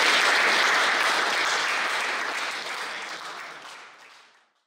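Audience applauding, dying away and stopping shortly before the end.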